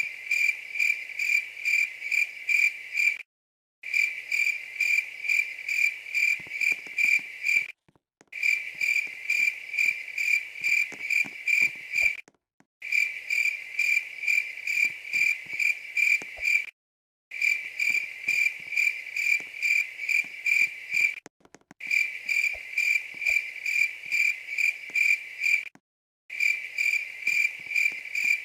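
Insect chirping, like a cricket: a loud, high, evenly pulsed trill at about three pulses a second, in runs of about four seconds broken by short gaps of complete silence.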